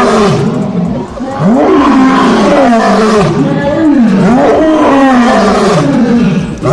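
An animal giving a series of loud calls, each one rising then falling in pitch, about one a second.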